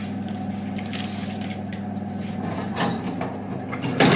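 A baking tin being handled on a kitchen worktop: a few light knocks and clatters, then a loud knock near the end. A steady low hum runs underneath.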